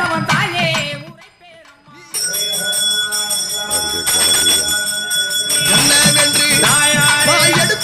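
Devotional music with singing, joined about two seconds in by a bell ringing steadily as the camphor lamp is waved in worship.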